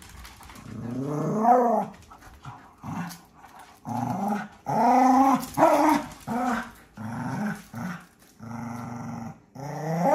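Dogs growling in play while tugging a toy between them, in a string of short growls with a rising and falling pitch, each up to about a second long.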